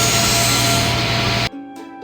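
Power saw cutting wood, a loud steady rasp with a whine, cut off abruptly about one and a half seconds in. Quieter music of single held notes follows.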